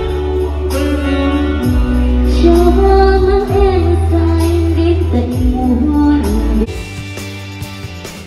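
A woman singing a Vietnamese song into a microphone over amplified backing music with a heavy bass. About two-thirds of the way through the bass stops and the music goes quieter and lighter.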